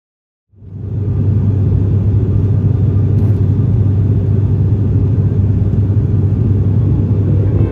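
Steady low drone of an ATR 72-600 turboprop's engines and six-bladed propellers, heard inside the cabin in flight, with a strong even hum. It fades in about half a second in.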